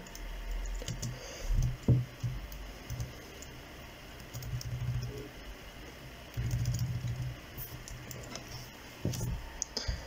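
Typing on a laptop keyboard: irregular key clicks as a line of code and a row of asterisks is keyed in, with a short low hum a little over six seconds in.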